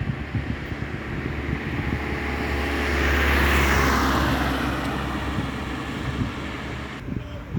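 A motor vehicle driving past, growing louder to a peak about halfway through, its pitch dropping as it goes by, then fading away over a low rumble.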